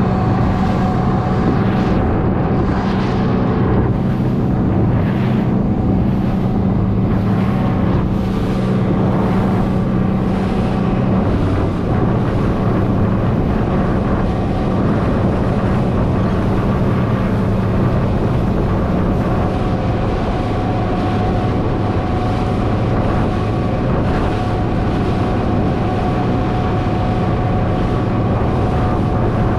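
Outboard motor of a small boat running steadily at speed, with wind on the microphone. The engine note changes slightly about eleven seconds in.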